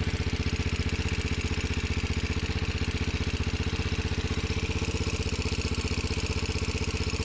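Yamaha TT-R125's single-cylinder four-stroke engine idling steadily with an even, rapid beat, running after its rebuild.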